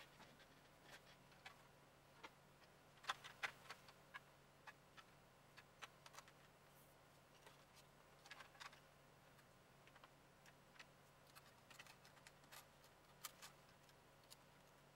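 Faint, scattered clicks and taps of plastic Nerf blaster shell parts and internals being handled and fitted together, with a small flurry of clicks about three seconds in, over a low steady hum.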